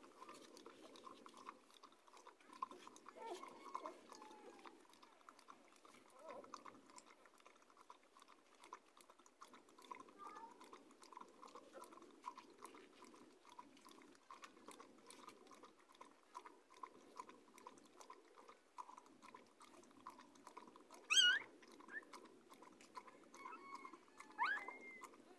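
Mother dog lapping milk from a plastic tub, a quick, even run of wet laps. A brief high squeak cuts in about three quarters of the way through, and a shorter rising squeak comes near the end.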